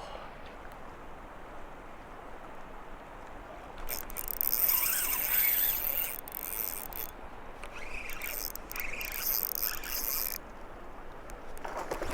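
Fishing reel being cranked to retrieve a lure: a high, scratchy whirring that starts about four seconds in, breaks off briefly a few times, and stops about ten seconds in.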